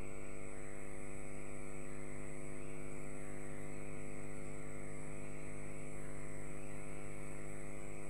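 Steady electrical mains hum with a buzz of many overtones and a thin high whine above it. This is a blank stretch of the recorded track with no programme sound.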